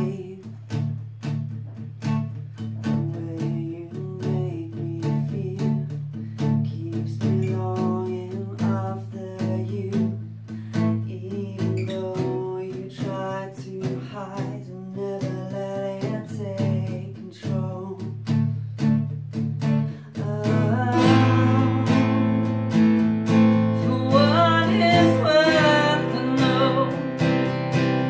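Acoustic guitar strummed in a steady rhythm while a woman sings. About twenty seconds in, the playing and singing get clearly louder and fuller.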